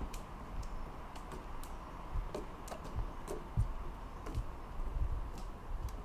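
Footsteps on a wooden boardwalk: irregular dull thuds with light clicks, one or two a second.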